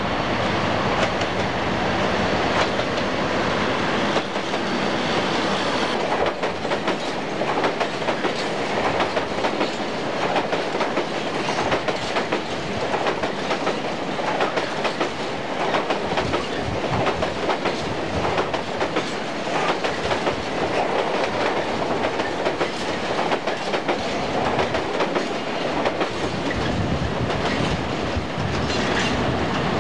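A British Rail Class 37 diesel locomotive passes close by with its English Electric engine running for the first few seconds. A long freight train of empty flat wagons follows, rolling past with a continuous clickety-clack of wheels over the rail joints.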